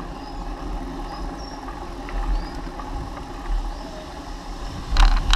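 Bicycle rolling along a park path, heard through its handlebar-mounted camera: a steady rumble and rattle from the ride, with a sharp clatter about five seconds in.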